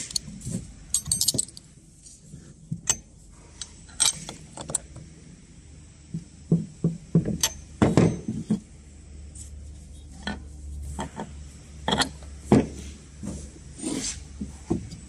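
Small metal hardware (nuts, washers and fittings) clinking and knocking as it is handled, threaded and set down on a wooden workbench while being fitted to the end stud of a polymer surge arrester. The clicks and taps come irregularly, a few of them sharp and ringing.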